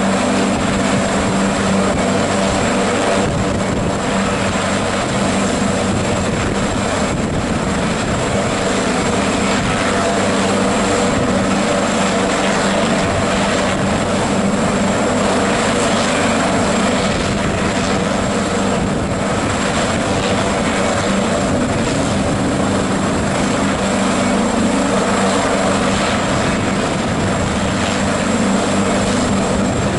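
AgustaWestland AW139 helicopter running steadily on the ground, its twin turboshaft engines turning the main rotor, with an even, unchanging pitch.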